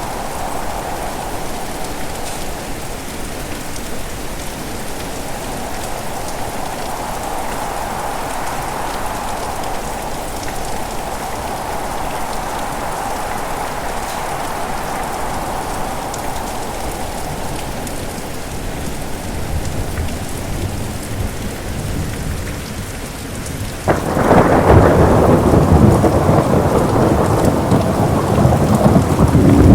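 Steady heavy rain, with a low rumble of thunder building about two-thirds of the way in, then a sudden loud clap of thunder near the end that keeps rumbling.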